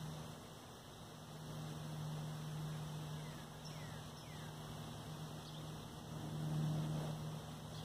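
Quiet outdoor ambience: a steady low hum that swells about six to seven seconds in, with a few faint short bird chirps in the middle.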